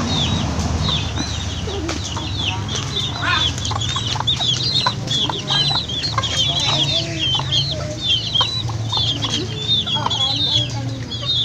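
Chickens clucking against a dense, continuous run of short, high chirps, with a steady low hum beneath.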